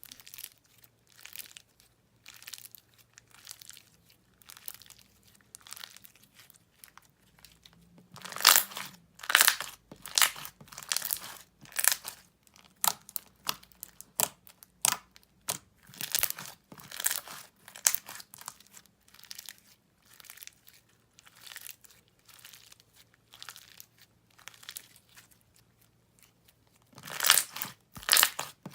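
Semi-thick glossy slime with foam beads being squished and stretched by hand, giving irregular crackling and popping clicks. The clicks come in louder clusters about eight to eleven seconds in and again near the end.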